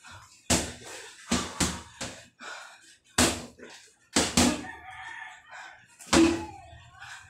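Boxing gloves punching a hanging heavy bag: about seven loud thuds in short combinations, several landing in quick pairs, with lighter knocks between.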